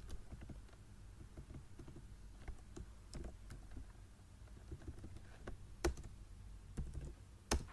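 Computer keyboard keys being typed in short, irregular strokes, with two louder clicks near the end.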